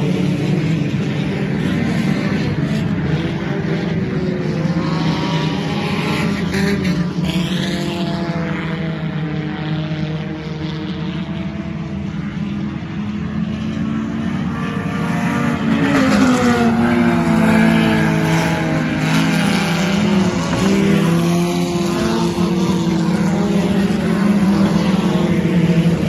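Sport compact race cars running hard around a dirt oval, their four-cylinder engines revving with pitch rising and falling as cars pass. It gets louder as the cars come by about two-thirds through and again near the end.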